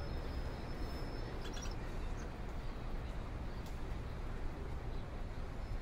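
Steady outdoor background noise, low and even, with a few faint bird chirps about a second and a half in.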